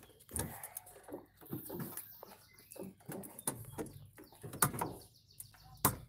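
Irregular clicks, knocks and scrapes of hands working the plastic drain-valve housing under a top-loading washing machine as its rubber valve seal is pulled out, with short squeaks and a sharp knock near the end.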